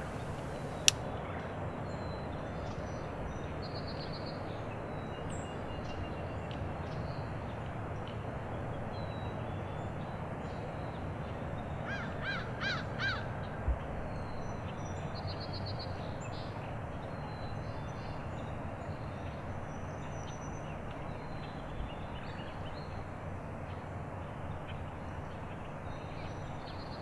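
A crow caws four times in quick succession about twelve seconds in, over steady outdoor background noise with faint chirps of small birds.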